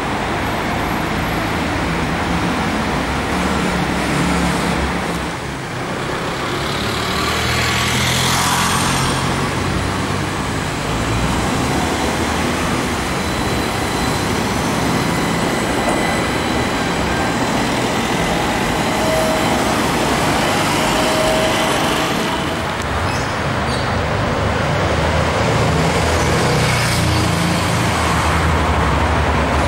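City street traffic noise: a steady mix of road vehicles passing, with an AnsaldoBreda Sirio tram running on the street tracks, and a short burst of hiss about eight seconds in.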